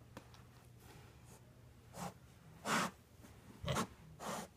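A mini pig snuffling with her snout against a carpeted stair: four short, breathy snorts about a second apart, the second the loudest and longest.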